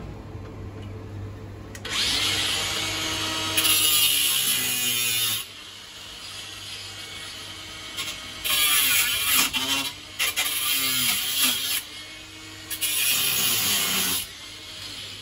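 Angle grinder cutting metal in three bursts, its disc whining up to speed and winding down between cuts.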